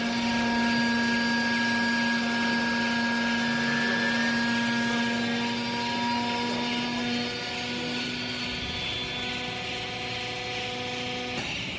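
Hydraulic power unit of a vertical clothes baler running as it presses: a steady hum with a whine over a hiss. It cuts off suddenly near the end.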